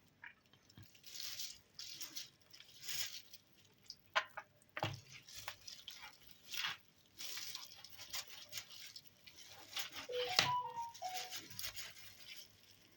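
A knife scoring raw pork spare ribs on a chopping board: intermittent faint scraping and cutting sounds, with a few sharp taps of the blade against the board.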